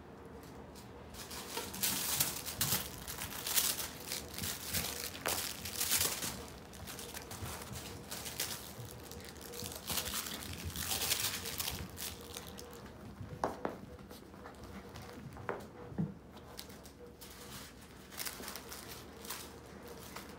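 Miniature poodle puppies playing with plush toys, making irregular crinkling and rustling as they tug and chew, busiest in the first half.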